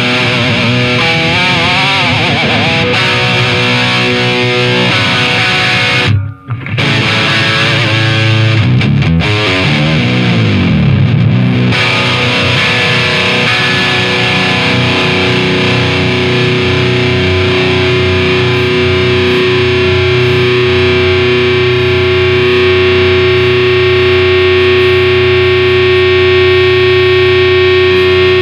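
Distorted electric guitar played loud through a Marshall DSL50 valve head and a Marshall 1960 4x12 cabinet loaded with Celestion G12T-75 and Vintage 30 speakers. A riff breaks off for a moment about six seconds in and then bends up and down in pitch. After that a chord is left ringing for the second half, with one note in it growing steadily stronger as feedback.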